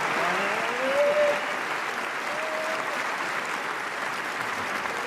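A large audience applauding steadily. A couple of brief whoops rise above the clapping, the loudest about a second in.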